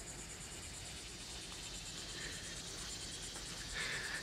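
Insects chirping in a steady, fast pulsing trill. A brief faint tone sounds near the end.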